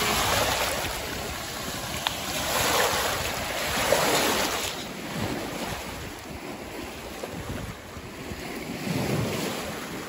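Small Lake Michigan waves washing in over rocks and pebbles at the water's edge, swelling and fading every few seconds, with wind rumbling on the microphone.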